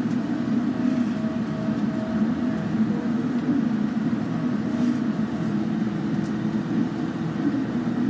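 Inside a bus cruising at highway speed: steady engine drone and tyre and road noise. A faint whine is heard for the first three seconds.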